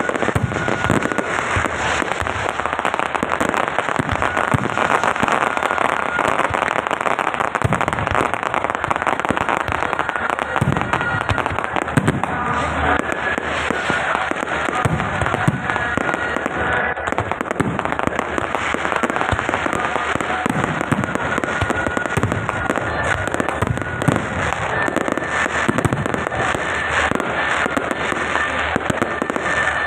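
Fireworks and firecrackers going off in a dense, continuous crackle of small pops and bangs.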